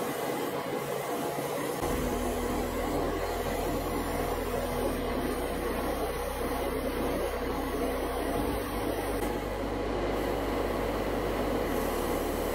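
Airbrush spraying matte varnish: a steady airy hiss over a steady motor drone.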